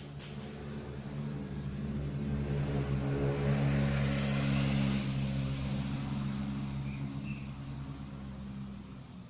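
A motor vehicle's engine passing by: a steady engine hum that grows louder to a peak in the middle and then fades away.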